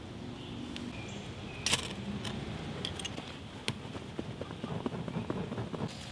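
A fire-starter rod struck over a tinder bundle: one sharp scrape about two seconds in, then many small crackles and snaps as the dry tinder catches and dry twigs are pushed onto it.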